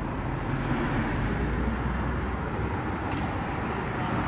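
Steady vehicle and street traffic noise, with a low engine rumble.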